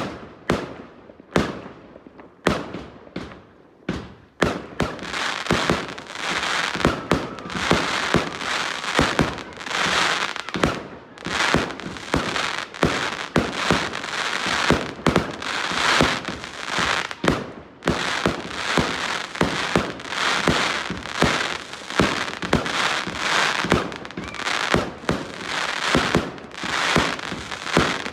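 Fireworks and firecrackers going off: a few separate sharp bangs over the first four seconds, then a dense, rapid run of bangs and crackling that keeps going, with a short lull about two-thirds of the way through.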